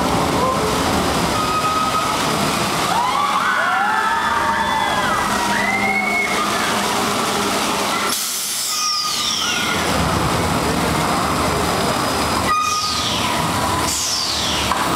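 Talocan suspended top-spin ride in motion, with a steady loud rush from its machinery and water fountains. Riders scream in overlapping rising and falling cries about three to six seconds in, and several high sounds slide downward in pitch in the second half.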